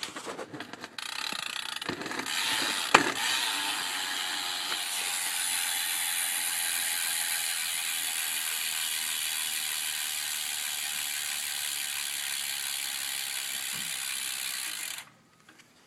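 BMX rear hub's pawls ratcheting fast and steadily as the wheel spins freely, after a few separate clicks at the start; the clicking cuts off suddenly near the end as the wheel is stopped.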